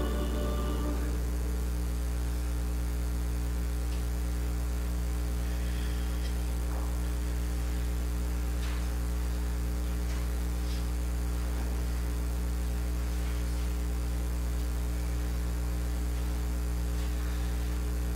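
Steady electrical mains hum with a ladder of overtones, with a few faint scattered knocks. The last sung note of a hymn fades out about a second in.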